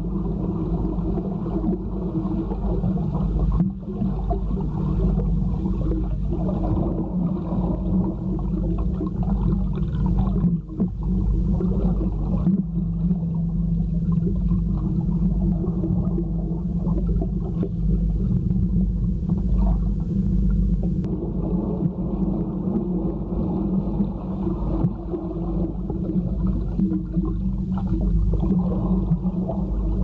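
Muffled underwater sound of a swimming pool, heard with the microphone submerged: a steady low rumble and hum with gurgling water movement.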